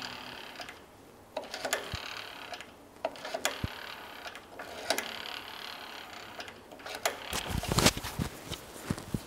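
Electric welding arc crackling and sizzling in several spells of one to two seconds with short breaks, with sharp clicks, loudest and most crackling about three-quarters of the way through.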